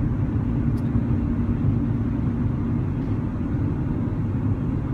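Road and engine noise heard from inside a moving car's cabin: a steady low rumble with a faint steady hum.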